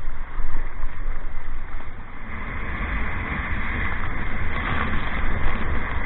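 Wind buffeting the microphone over sloshing sea; about two seconds in, a loud, steady rushing hiss of breaking whitewater sets in around a surf kayak as it is caught in the foam of a wave.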